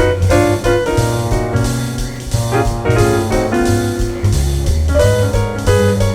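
Background music: a jazzy instrumental with piano or keyboard chords over bass and a drum kit beat.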